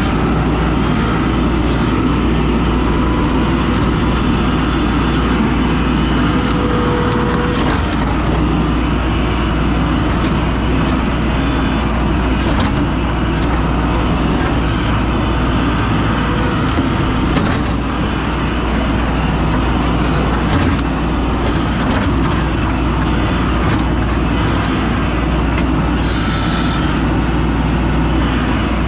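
An engine running steadily at an even speed, with a constant low rumble.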